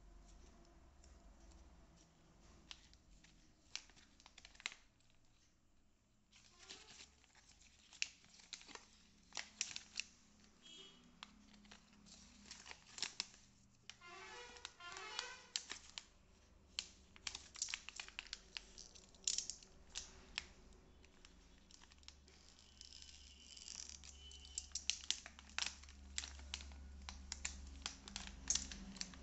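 Clear plastic packaging pouch crinkling and crackling as hands handle it and pull it open, with many sharp crackles and a tearing sound about halfway through.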